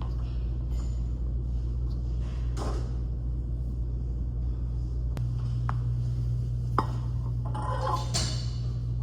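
Background music with a sustained low bass that shifts pitch about five seconds in. A few sharp clicks and short rustling noises sit over it.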